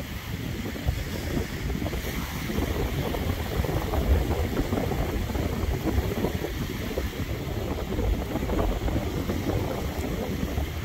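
Wind buffeting the microphone, a low, irregular rumble, over small waves washing onto the sandy shore.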